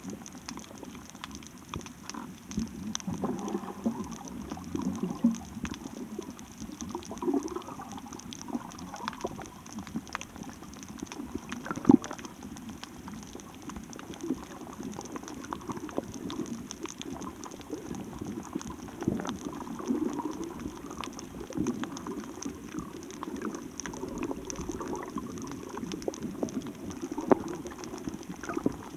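Water bubbling and gurgling unevenly, with scattered clicks and one sharp crack about twelve seconds in.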